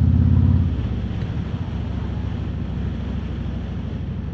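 Harley-Davidson Road King Special's V-twin engine running under throttle on the road, then easing off about two-thirds of a second in and running on quieter as the bike rolls along, with wind noise over the microphone.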